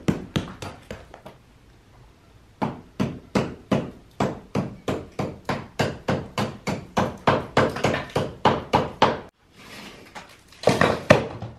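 A hammer striking old brickwork set in lime mortar in rapid, even blows, about three or four a second, to knock the brick loose. Near the end there is a brief rattling clatter as broken brick pieces are pulled free.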